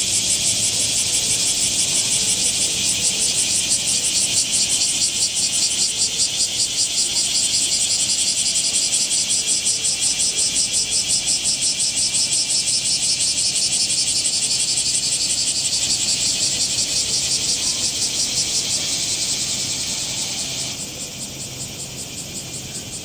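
Summer cicadas in chorus: a loud, high, pulsing buzz that runs on without a break, partly dropping out and quietening near the end.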